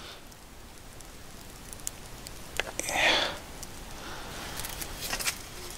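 Charcoal fire grilling a whole Biwa trout in a wire basket: a low, steady hiss of the coals with scattered sharp crackles and pops, and a brief louder rush about three seconds in.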